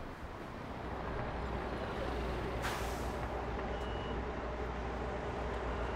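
City street traffic: a steady low rumble of passing vehicles, with a short burst of air hiss about two and a half seconds in, typical of a bus or truck's air brakes, and a brief high beep about a second later.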